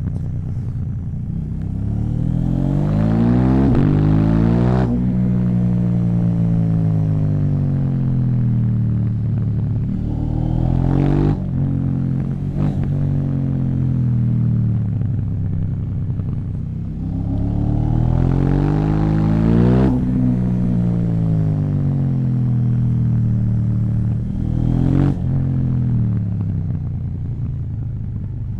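KTM 790 Duke parallel-twin engine with an Akrapovic exhaust, revving up twice, about three seconds in and again near the twenty-second mark. Each time the pitch rises, breaks off with a sharp crack, then falls away slowly as the revs drop. A few further short cracks come between and after the revs.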